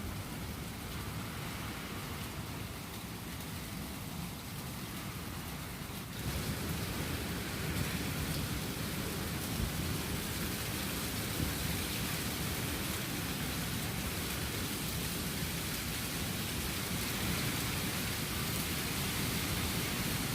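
Strong wind and rain in a winter storm, a steady noisy rush that grows louder about six seconds in.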